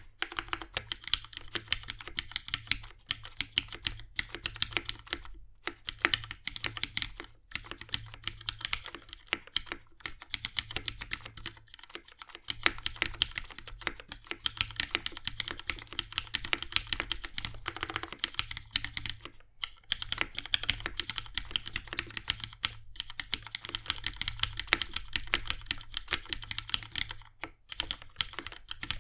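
Typing on a Violet Singa R1 mechanical keyboard fitted with lubed, retooled Cherry MX Black linear switches on 63.5 g springs and GMK keycaps: a fast, continuous run of key clacks, broken by a few brief pauses.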